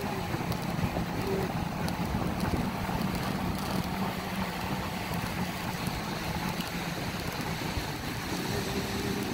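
Ocean surf breaking and washing onto a sandy beach, with wind rumbling on the microphone: a steady rushing noise without breaks.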